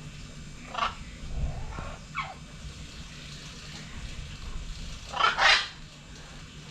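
A few short animal calls: two brief ones in the first couple of seconds, the second falling in pitch, then a louder double call about five seconds in.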